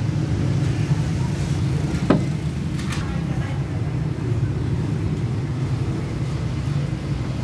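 Steady low rumble of a motor vehicle running, with a single sharp click about two seconds in.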